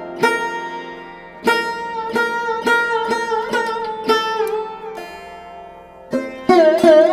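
Instrumental background music: plucked string notes with sharp attacks and bending pitches over a steady low drone.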